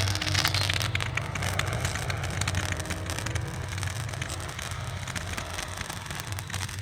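Fireworks crackling: a dense run of rapid small pops, loudest at first and thinning out, over a low steady hum.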